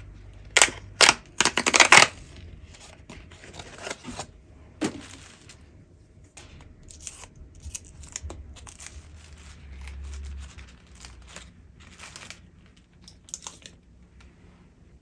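Cardboard cheese box torn open at its tab, a few loud sharp rips in the first two seconds, then aluminium foil wrapper crinkling in soft scattered crackles as it is peeled off a round of Boursin cheese.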